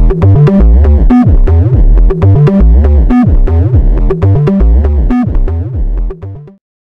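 Electronic synthesizer music with a heavy, repeating bass pattern and falling pitch glides. It cuts off abruptly near the end.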